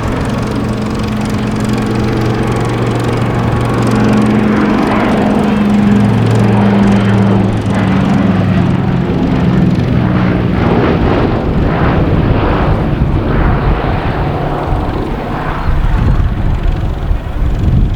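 Consolidated PBY Catalina's twin radial piston engines droning in a fly-past. The propeller tone drops in pitch over several seconds as the aircraft passes. It then turns into a rougher, noisier rumble in the second half.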